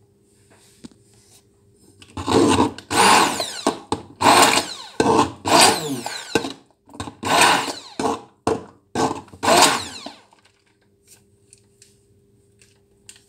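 Hand-held immersion (stick) blender run in a string of short pulses, its motor whirring up and down in pitch as it spins up and slows. It starts about two seconds in and stops around ten seconds in.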